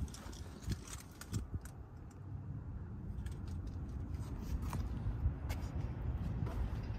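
Handling noise from a handheld phone being moved around: a low rumble with scattered small clicks and taps. The rumble grows a little louder about halfway through.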